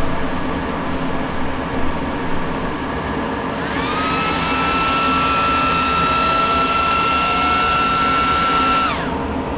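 Lenovo x3550 M4 server's cooling fans spinning up at power-on to a high, steady whine, held for about five seconds, then winding down suddenly as the server shuts itself off on a fan error. The owner suspects the error comes from two empty fan slots. A steady hum of other rack servers runs underneath.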